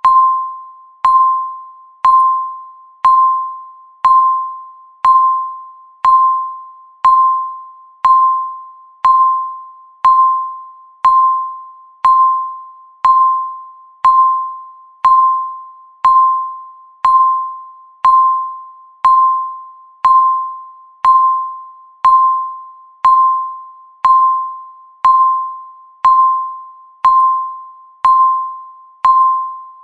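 Countdown timer's ticking sound: a short, bell-like ping struck exactly once a second, each one starting sharply and fading away before the next.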